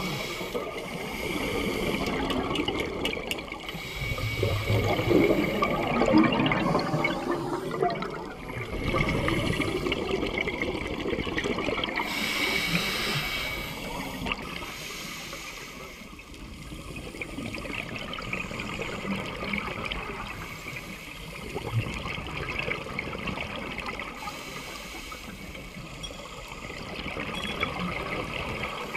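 Scuba divers' exhaled bubbles gurgling and rushing past the mic underwater. The sound swells and fades every few seconds as the divers breathe through their regulators.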